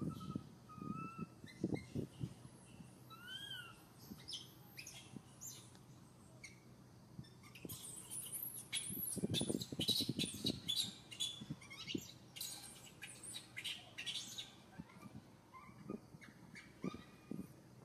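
High chirps and short calls, most likely birds, with a dense quick cluster in the middle. A few thin rising-and-falling squeaks early on that fit an infant macaque's cries. Soft low rustles come now and then.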